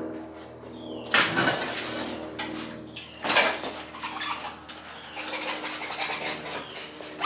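Sharp metallic clanks and knocks, one about a second in and a louder one a little after three seconds, over a steady low hum.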